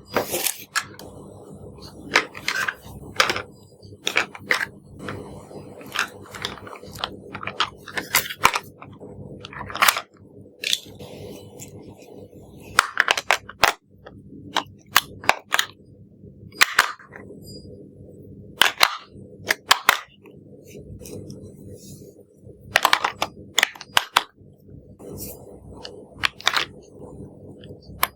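Sharp, irregular plastic clicks, snaps and cracks in quick clusters, from hard plastic toy parts and packaging being handled, over a steady low hum.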